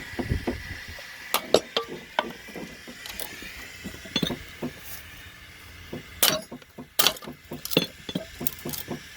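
Porcelain toilet being broken up: irregular sharp clinks and knocks of ceramic pieces, a few louder hits among them.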